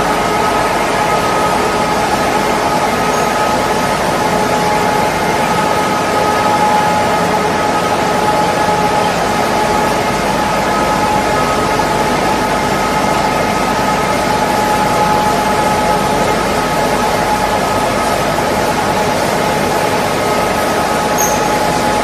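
Wood pellet production line running: the pellet mill and its conveyors make a loud, steady mechanical din, with constant whining tones held throughout.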